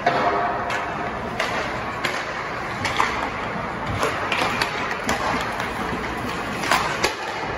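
Ice hockey practice ambience in a rink: a steady rush of noise with scattered sharp clacks of hockey sticks and pucks striking, at irregular intervals.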